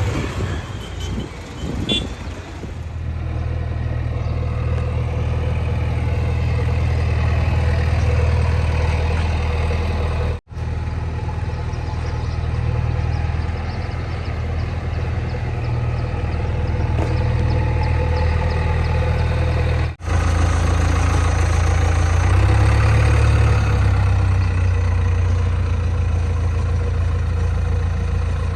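JCB 3DX backhoe loader's diesel engine running steadily with a deep, low drone. The sound drops out for a moment twice, about ten and twenty seconds in.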